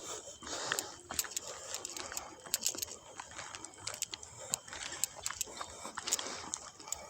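Irregular crackling and crunching of dry leaves and twigs underfoot, as someone walks through woodland brush.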